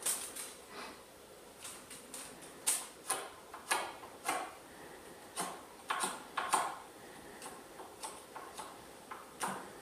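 Irregular light clicks and scrapes of a small sheet-metal flashing template being handled and marked with a marker, some ticks coming close together and others spaced out.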